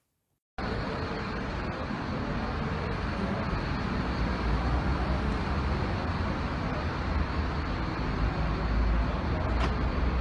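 Steady low rumble of a delivery van's engine running close by, with street noise; it starts abruptly about half a second in.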